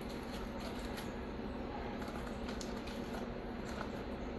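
Aluminium foil being unwrapped from a hot baking packet: faint crinkling and scattered light ticks over a steady background hiss.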